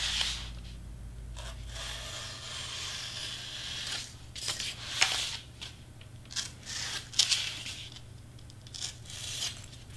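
Excel Fit Grip craft knife slicing through foam board: a scratchy, tearing hiss in several drawn strokes with short pauses between, the longest about two seconds in.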